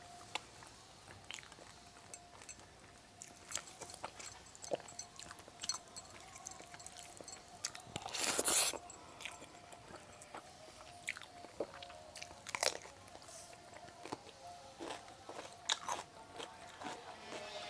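Close-up eating sounds: chewing and crunchy bites of an Indian vegetarian thali lunch, with scattered short mouth clicks and a longer, louder crunch about eight seconds in.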